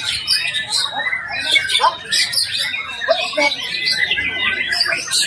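White-rumped shama (murai batu) singing vigorously without a break: a fast, varied stream of whistles, chirps and rapid note runs, with quick rising and falling glides.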